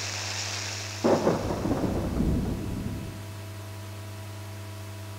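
A thunderclap about a second in: a sudden crack that spreads into a low rumble and dies away over about two seconds, over a steady hiss and low hum.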